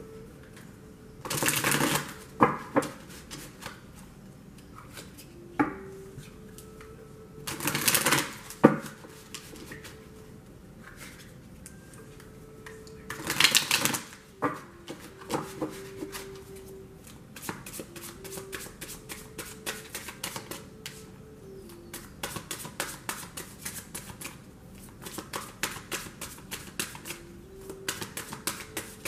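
A tarot deck being shuffled by hand. Three loud shuffling bursts of about a second each, then a long run of quick, light card clicks several times a second from a little past halfway.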